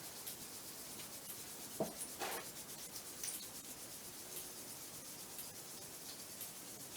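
Faint steady hiss with a few light knocks and scrapes about two and three seconds in, as the actuator and small parts are handled.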